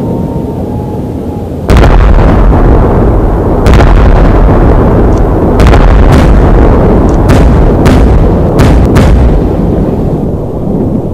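Aerial fireworks exploding: a sudden heavy boom about two seconds in, then a series of sharp cracks over a continuous low rumble.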